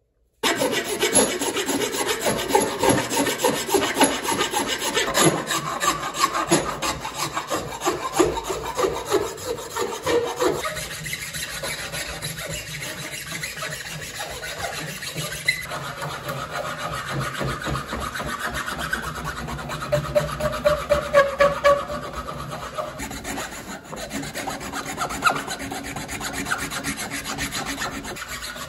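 A rasp scraping rapidly back and forth over a wooden hatchet handle, shaping the wood in quick, steady strokes.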